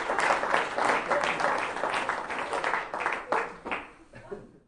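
Audience applauding, the clapping thinning out after about three seconds and fading away at the end.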